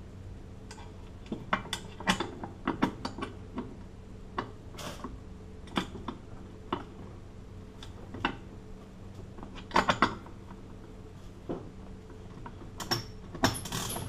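Irregular metal clicks, clinks and taps as a heavy steel padlock and hand tools are handled, over a faint steady hum.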